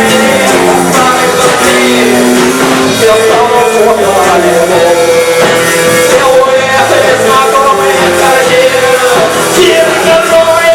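Live band music: a rock-style song passage without clear words, a held melody line over the accompaniment.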